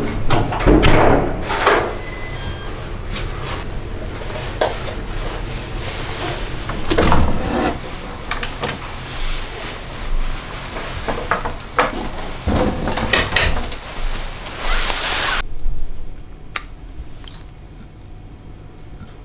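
An interior door handled and opened, with latch clicks, knocks and thuds, over a steady hiss that cuts off suddenly about three-quarters of the way through.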